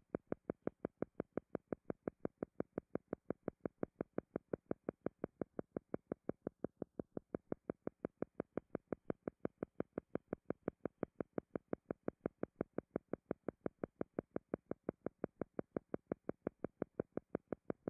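Faint synthesized pulsing tone, about five short, even pulses a second, the steady background pulse of an audio hypnosis track.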